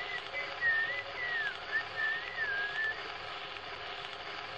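A person whistling a short melody, a single clear line that slides up and down and stops about three seconds in, over a steady hiss that carries on after it.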